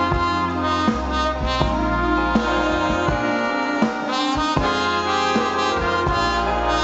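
A live circus orchestra with brass and saxophones playing a tune over a steady beat.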